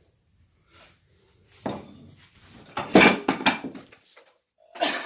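Household objects clattering as they fall or are knocked over: a knock about one and a half seconds in, then a louder run of clanks and rattles about three seconds in.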